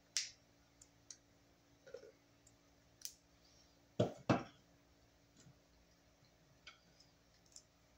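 Handling a roll of black vinyl electrical tape at a metal breaker box: a short rip just after the start and a few small clicks. About four seconds in come two knocks, a third of a second apart, as the roll is set on top of the box.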